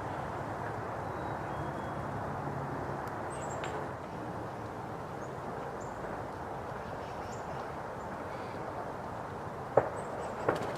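Steady outdoor background noise with faint, short, high chirps of small birds scattered through it, and two sharp clicks near the end.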